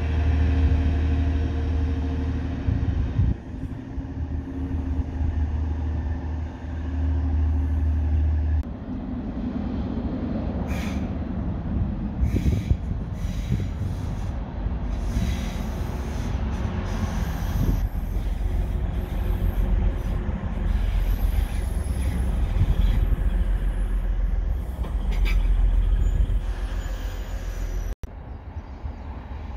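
Class 185 diesel multiple unit's diesel engine running with a loud steady low hum for the first eight seconds or so, then a rougher rail rumble with scattered clanks and brief squeals.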